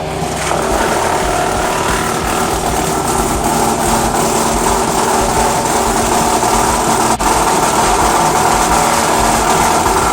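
Woodland Mills WC88 PTO wood chipper running off a Kubota L4701 diesel tractor: a steady mechanical drone of engine and spinning chipper. It gets louder about half a second in and then holds steady, with a momentary drop around seven seconds in.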